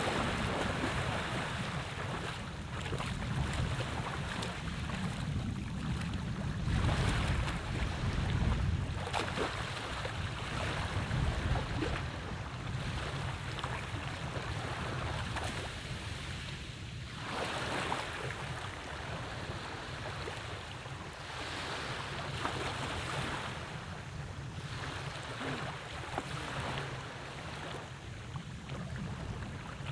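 Sea water washing and lapping in surges every couple of seconds, with wind rumbling on the microphone, heaviest about a quarter of the way in.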